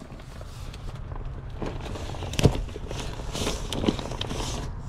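Rustling and a few sharp knocks as gear is handled inside a truck, the loudest knock about halfway through, over a steady low rumble.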